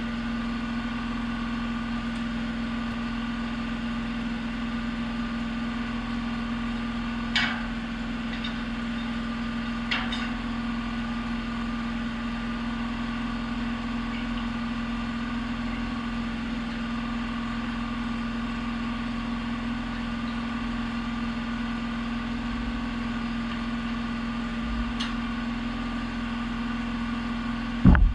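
A machine running steadily with an even, engine-like hum, and a few faint ticks now and then.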